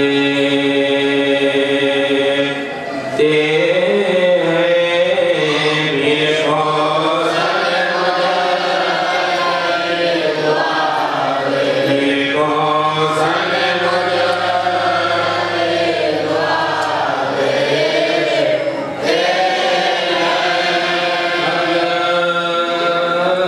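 A group of men chanting a noha, a Shia lament, together into a microphone, in long held, wavering notes that break briefly twice.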